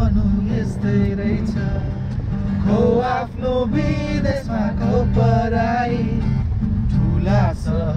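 Men singing a song to an acoustic guitar inside a moving car's cabin, with the car's low road and engine noise underneath.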